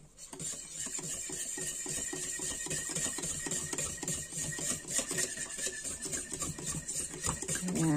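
Wire whisk beating a milk mixture in a glass bowl, rapid steady scraping strokes of the wires against the bowl.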